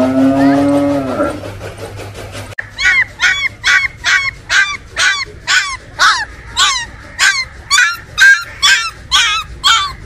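A cow moos once, about a second long. Then, from about two and a half seconds in, a Gull Terrier puppy cries over and over in short, high-pitched whimpering yelps, two to three a second: the cries of a puppy left alone, which the owner takes for missing its mother.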